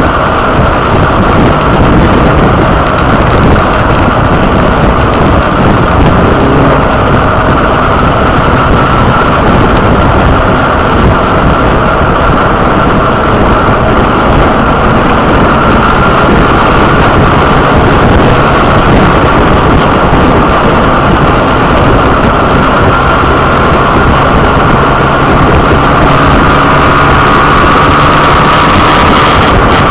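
Motorcycle riding at speed: the engine running under loud, steady wind noise on the microphone, with a slight rise in engine pitch near the end.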